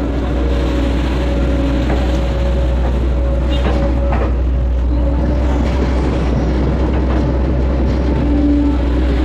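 Hitachi excavator's diesel engine and hydraulics running steadily as the bucket digs and lifts mud out of a ditch, with a steady whine over the engine hum and a couple of short knocks about four seconds in.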